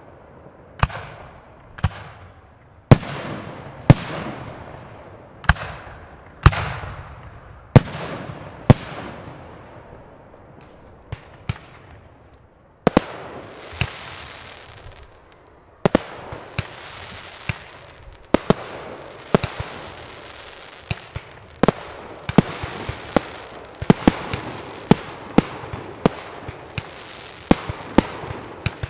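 Aerial firework shells bursting, with sharp bangs about once a second, each trailing off in an echo. From about halfway a steady hiss of glittering stars sets in, and the bangs come faster and faster toward the end.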